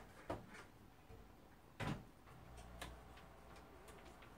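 Faint kitchen clatter: a few sharp knocks and clicks, the loudest about two seconds in, after which a low steady hum sets in.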